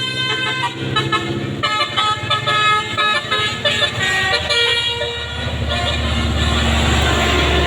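Basuri telolet multi-tone air horn on a bus playing a quick tune of short, changing notes, followed about five seconds in by the bus's engine running loud as it passes.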